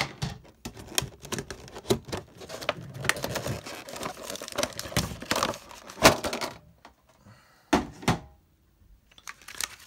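Rigid clear plastic blister packaging being pried and bent open by hand, a dense crackling and clicking with a louder sharp snap about six seconds in, then a few more clicks near the end.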